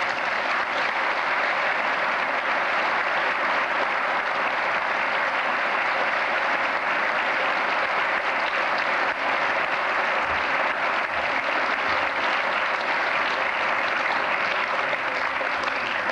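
A congregation applauding in a church, a steady sustained round of clapping that fades out at the end.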